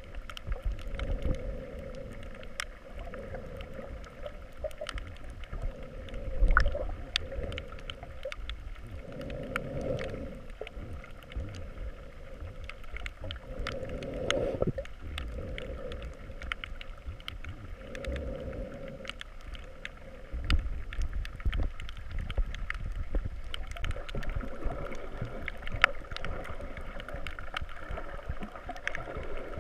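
Muffled underwater sound heard through a camera's waterproof housing: a low rumble of moving water that swells every few seconds, with many sharp clicks and crackles throughout.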